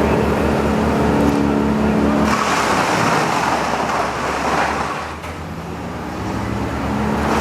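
Engine-powered machinery running steadily with a pulsing low rumble, and a louder rushing noise from about two to five seconds in.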